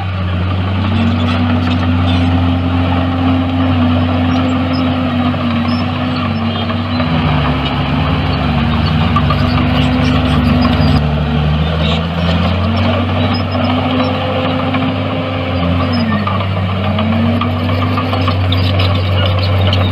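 Komatsu D61EX bulldozer's diesel engine running steadily, its pitch dropping and climbing back about seven seconds in and again near the end.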